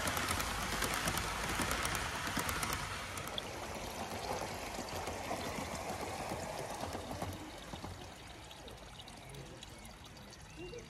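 Live-steam model locomotive passing with a steady rushing hiss of steam and light clicking for the first few seconds, fading away as the train moves off.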